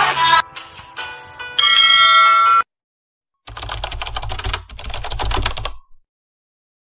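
Intro-animation sound effects: a short chime-like jingle, a brief pause, then about two seconds of rapid typewriter-style clicking over a low bass tone that stops abruptly.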